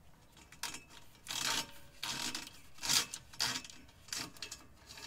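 Electrical cable leads being pulled back through a tube, rubbing and scraping against it in a run of short pulls, the loudest about three seconds in.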